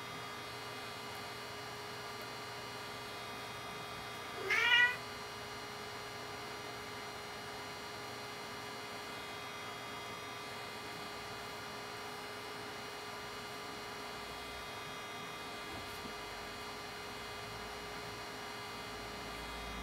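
Bengal kitten giving one short meow that rises in pitch, about four and a half seconds in, over a steady electrical hum.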